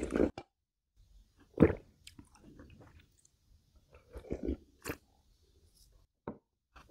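Close-miked eating sounds: a handful of separate short mouth noises and chewing, the loudest a sharp one about a second and a half in, with a cluster around four to five seconds in.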